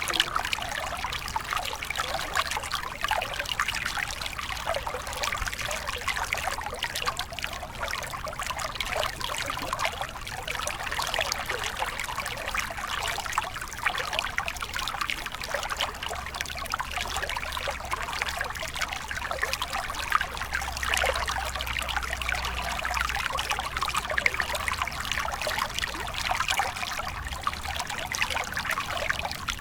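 Shallow stream water trickling and splashing steadily over stones, a dense babble of small splashes with a faint low rumble underneath.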